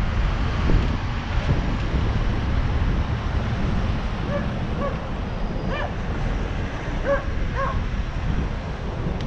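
Wind buffeting the microphone of a moving rider, a steady low rumble, with a few short pitched chirps in the second half.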